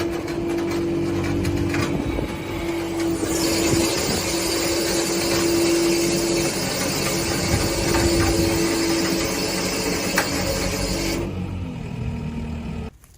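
Skid steer loader's engine running steadily under load while driving a Micro Spread-a-bale's single horizontal rotor. A rushing hiss joins about three seconds in and stops about two seconds before the end.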